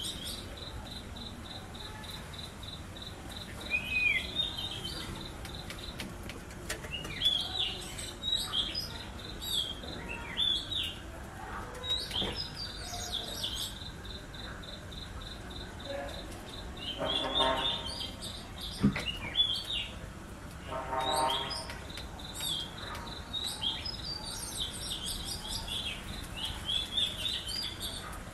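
Birds chirping and calling: many short, high chirps over a steady, rapidly pulsing high trill, with two longer, fuller calls about two-thirds of the way through.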